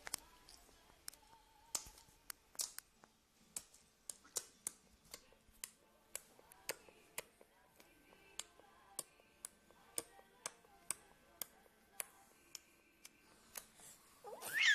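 A baby grinding his first teeth together, making sharp clicks about twice a second at a slightly uneven pace. A short vocal squeal comes right at the end.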